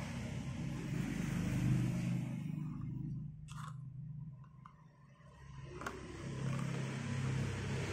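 Handling noise of a blister-packed toy car card: the plastic bubble and cardboard crinkle and rub in the hands over a low hum. The sound fades for a couple of seconds in the middle, with a light click about three and a half seconds in and another near six seconds.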